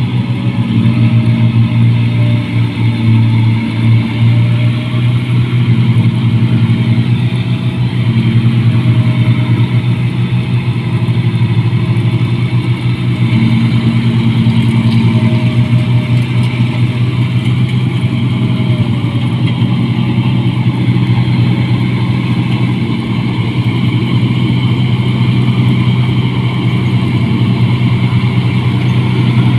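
Rice combine harvester working through the crop: a steady low engine hum with a noisy mechanical rush over it, without letup.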